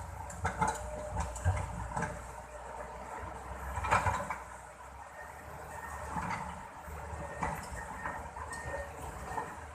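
Excavator engine running steadily with a low rumble, with scattered knocks and clanks; the loudest knock comes about four seconds in.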